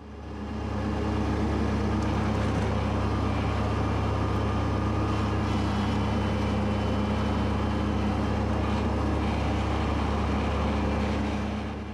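Kubota B2601 compact tractor's three-cylinder diesel engine and mower running steadily under load while cutting thick, wet grass at speed. The sound fades in at the start and out near the end.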